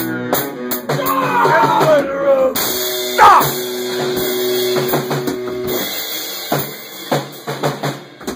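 Rock band playing live and loud: drum kit hits with cymbals and electric guitar. A note is held for a few seconds partway through, and the playing thins out near the end.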